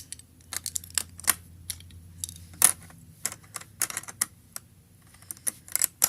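Snap Circuits plastic parts with metal snaps clicking and clattering as they are handled and snapped together, in irregular sharp clicks a few per second.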